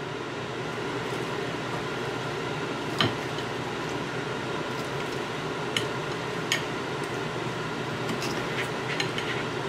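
A knife cutting through a fried green tomato on a plate. There is one sharp click of the blade against the plate about three seconds in, two more around six seconds, and lighter taps near the end, over a steady hiss.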